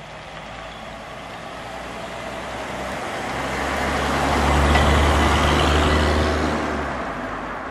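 1961 AMC Rambler American convertible with its factory inline-six engine driving past. Engine hum and tyre noise grow louder as it approaches, are loudest about five seconds in, then fade as it moves away.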